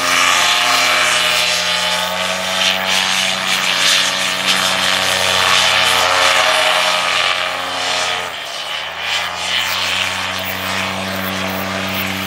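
Paramotor's two-stroke engine and propeller buzzing steadily as it flies low. About eight seconds in the engine note drops away briefly, then comes back up.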